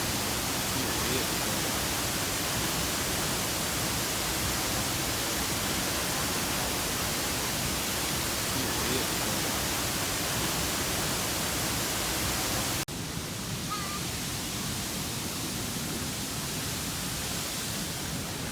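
Waterfall rushing up close: a steady, loud hiss of falling water. About 13 seconds in it cuts suddenly to a slightly quieter, duller rush.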